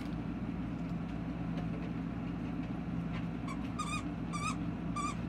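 A steady low hum runs under the whole stretch. About three and a half seconds in come four short, high, wavering chirps in quick succession.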